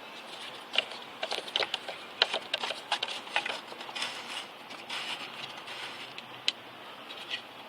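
A quick run of light clicks and knocks from parts and tools being handled during reassembly, thickest in the first half and then scattered, over a faint steady hiss.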